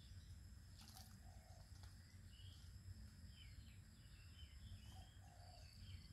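Near silence: faint open-air ambience with scattered small bird chirps over a steady high insect buzz and a low wind rumble.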